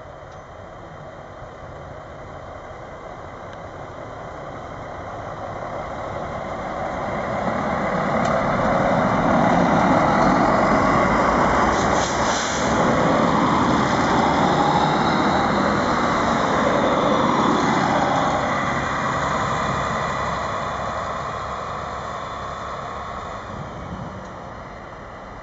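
Two coupled Stadler Regio-Shuttle RS1 diesel railcars approaching, passing close by and running away. Diesel engine and wheels-on-rail noise build up gradually to a peak around the middle, then fade as the train recedes.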